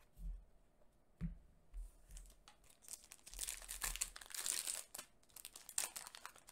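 Foil Yu-Gi-Oh! booster pack wrapper crinkling and tearing as it is ripped open by hand, the crackle thickest from about three seconds in. A few soft knocks of handling come first.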